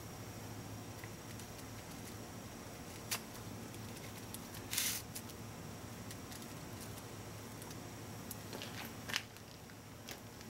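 Quiet shop room tone with a steady low hum, broken by a few light clicks and one short hiss.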